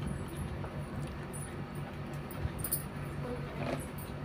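Faint clicks and rustles of a plastic toy comb and its cardboard box insert being handled as the comb is worked loose, over a steady low hum.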